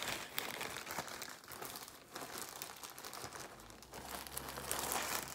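Plastic packaging bag crinkling and rustling as it is handled and a graduation cap is stuffed into it, in uneven bursts that swell again about four seconds in.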